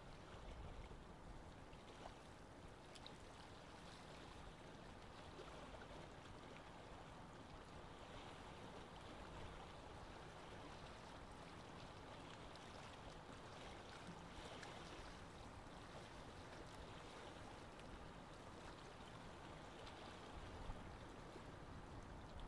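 Aquarium water trickling and gurgling, faint and steady, with a few light ticks.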